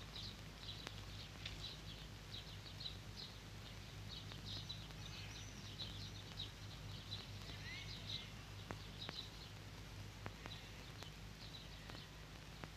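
Faint outdoor ambience of small birds chirping in short, repeated calls, over a steady low hum.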